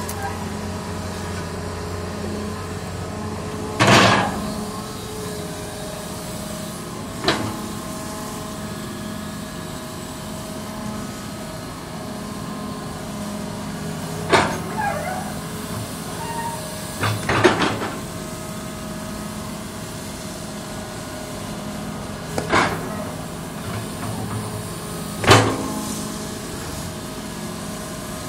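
Hitachi Zaxis 200-1 hydraulic excavator digging soil: its diesel engine runs steadily under load, broken by about six sharp knocks from the bucket and its linkage, one of them a quick double.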